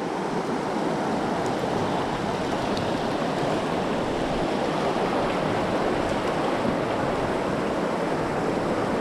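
Mountain creek water rushing steadily over rocks, an even noise.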